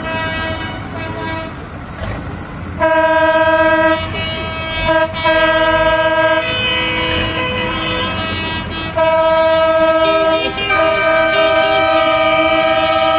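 Tractor horns sounding in long held blasts, several tones overlapping, the first starting about three seconds in and more coming again and again after, over the low rumble of engines.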